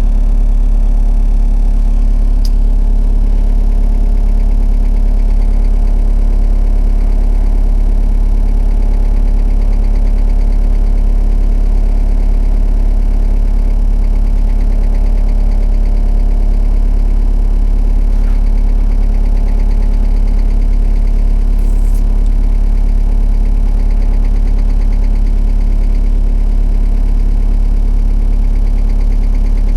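Excavator's diesel engine running at a steady speed: a deep, even drone that does not rise or fall.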